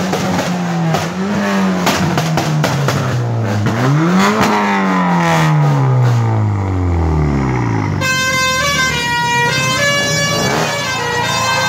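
Skoda Octavia's engine revved through an aftermarket exhaust, the pitch wavering and then rising before falling away in one long glide as the revs drop, with a patter of crackles in the first few seconds. About eight seconds in, a melody of stepped tones takes over.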